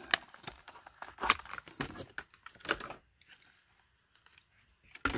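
Stiff clear plastic blister pack crackling and clicking as it is pried open and a die-cast toy car is worked out of it. The irregular crackles and clicks come in the first few seconds, then a sharp snap near the end.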